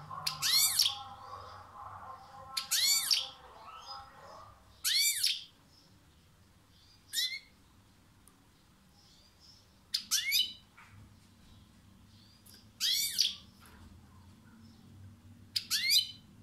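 European goldfinch giving short, sharp, high-pitched call phrases. There are seven of them, one every two to three seconds.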